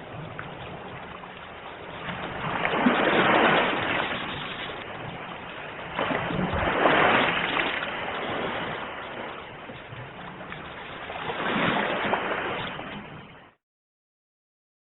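Ocean waves surging and breaking on the shore, three louder swells about four seconds apart over a steady wash. The sound cuts off suddenly near the end.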